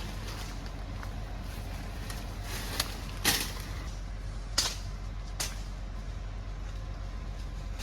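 Heavy earth-moving machine's diesel engine running steadily at a low drone, with four short sharp metallic clanks or squeaks in the middle.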